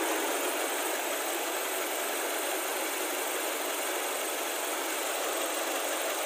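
Nissan X-Trail's QR20 four-cylinder engine running at idle, a steady, even whirr with no change, during a warm test run after a top overhaul.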